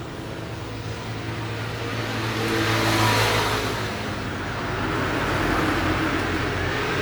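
Road traffic with motor vehicle engines running, the noise swelling as vehicles pass about three seconds in and again near the end.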